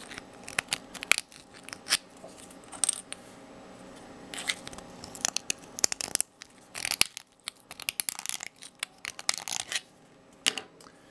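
A small metal-tipped hand tool scraping inside a 3D-printed plastic connector, making a run of irregular scratches and sharp clicks as stray bits of plastic are cleared from the seat where the magnets rest.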